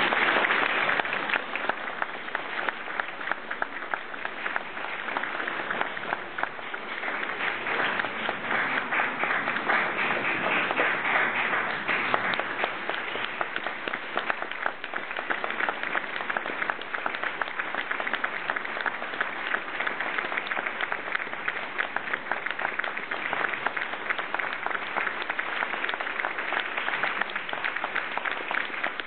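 Concert audience applauding, a dense steady patter of many hands clapping that swells a little about eight seconds in.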